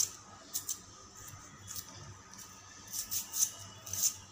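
Hand-held vegetable peeler scraping the skin off a cucumber in a series of short, quick strokes, each a brief high rasp.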